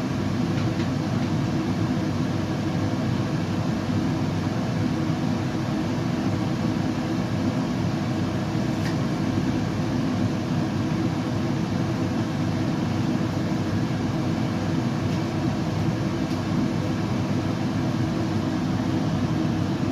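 Steady, unchanging low rumbling noise played as white noise for a baby, with a faint even hum underneath.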